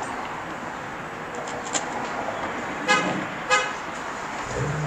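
Street traffic noise, with a car horn giving two short toots about three seconds in.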